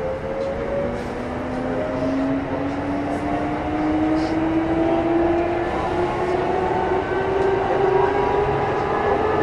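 Kintetsu 8600 series electric train running, heard from on board: motor and gear whine rising steadily in pitch over the rumble of the wheels as the train accelerates.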